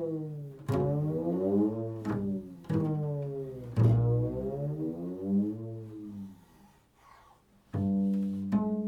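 Solo improvised music on a low string instrument: plucked notes that slide up and down in pitch, a brief pause about two-thirds through, then a steady held note near the end.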